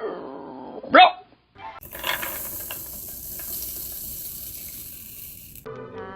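Cartoon sound effects: a short, sharply rising yelp-like cry about a second in, then a steady hiss lasting about four seconds, before music comes in near the end.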